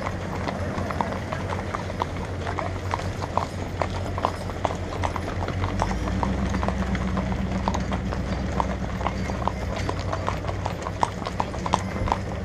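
Several horses walking on asphalt, hooves clip-clopping in a steady, overlapping rhythm. A steady low hum runs underneath and grows heavier about halfway through.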